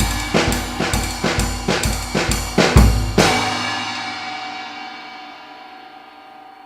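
Drum kit with maple-shell drums and an 18-inch Zildjian Pang among its cymbals playing a steady beat, the bass drum landing about twice a second, up to a final heavy hit about three seconds in. The cymbals then ring on and slowly fade.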